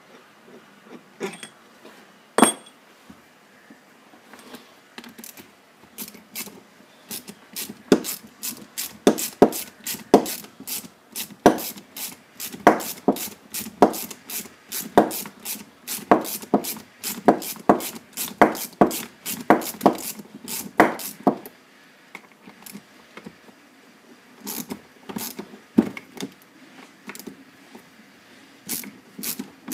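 Sharp clicks and knocks of hand tools working on a brake caliper to free stuck pistons. The knocks come about two to three a second in steady runs, stop for a few seconds about two-thirds of the way through, then start again.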